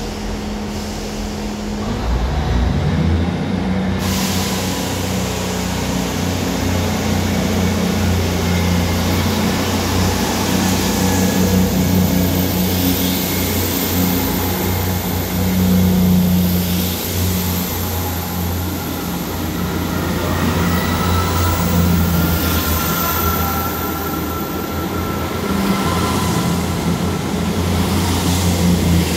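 Eight-coach South Western Railway diesel multiple unit pulling out past the platform. Its diesel engines make a steady low drone as the coaches roll by, and a high whine joins about four seconds in.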